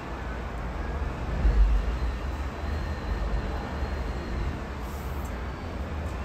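Strong gusty wind buffeting the microphone with a low rumble, the strongest gust about a second and a half in, over a steady hiss of distant road traffic.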